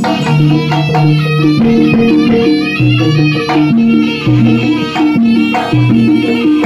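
Javanese jaranan ensemble playing: a reedy, nasal shawm (slompret) melody of held notes over drum strokes and the ringing of small bronze kettle gongs.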